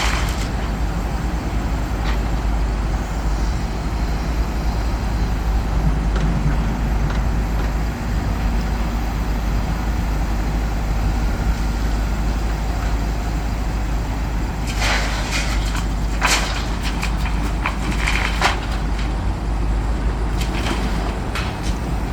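Heavy diesel machinery running steadily with a deep engine rumble. From about two-thirds of the way in come several short, sharp bangs and scrapes.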